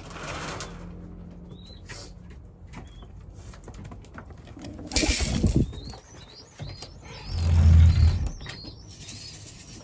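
Racing pigeons at a loft: a brief burst of wing flapping about five seconds in, and scattered short, high chirps from birds. There is a loud, low bump near the end.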